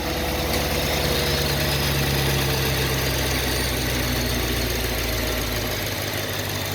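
Supercharged car engine idling steadily.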